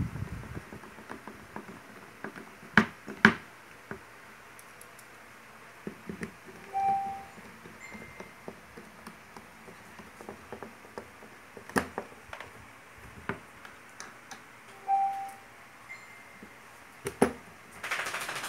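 Screwdriver driving screws into the plastic housing of an electric drill: small clicks and scrapes, with a few sharp knocks of the tool against the housing or bench, two of them about three seconds in and others near the middle and end. A few short, faint high tones sound in the background.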